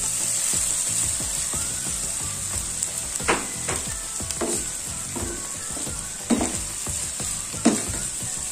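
Fried-noodle stir-fry sizzling steadily in a frying pan as soaked instant noodles cook with shrimp, egg and pak choy. A spatula stirs through it, knocking against the pan a few times in the second half.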